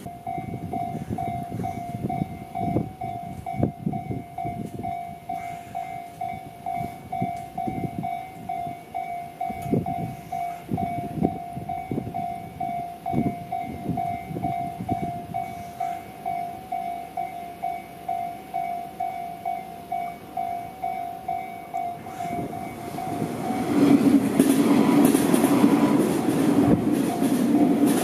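Japanese railway level-crossing alarm bell ringing in a steady, even pulse of about two strikes a second. About 24 seconds in, a Tobu Tojo Line electric commuter train arrives and runs over the crossing, and its running noise and rail noise rise well above the bell.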